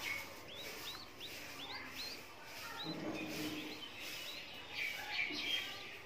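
A small black downy chick peeping: a series of short, high, rising cheeps, about two a second, with a louder flurry of calls near the end.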